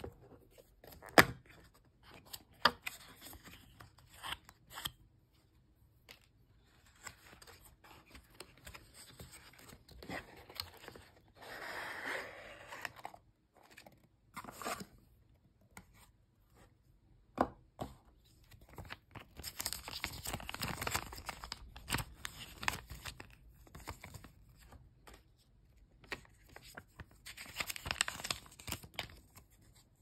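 Handling noise from unpacking a small cardboard box: the plastic seal strip is torn off, the flaps are opened and the paper inserts are slid out and rustled. Scattered sharp clicks and taps, the loudest about a second in, between several stretches of paper and plastic rustling.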